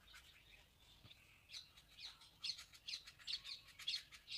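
Ballpoint pen scratching faintly on notebook paper as words are handwritten, in short irregular strokes that come more often from about a second and a half in.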